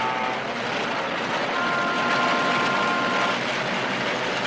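Steady rushing noise of a speeding truck and a train. About a second and a half in, a high two-note horn sounds and holds for nearly two seconds before cutting off.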